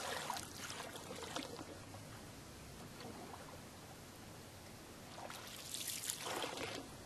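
Canoe paddle strokes splashing in the water: one near the start and another about five seconds in, with faint water trickling between them.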